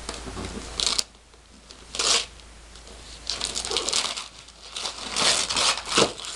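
Gift wrapping paper being ripped and crinkled off a box by hand, in short bursts of tearing that come thicker in the second half, with one sharp knock near the end.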